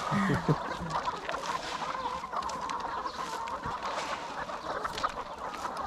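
A large flock of white Lohmann Sandy laying hens clucking and chattering together, a steady mass of calls with many small scattered ticks.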